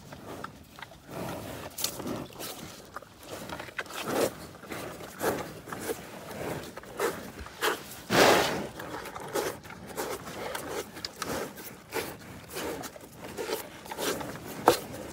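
Cattle sniffing and breathing right at the microphone in a string of short, uneven snuffles, with one loud exhale about eight seconds in.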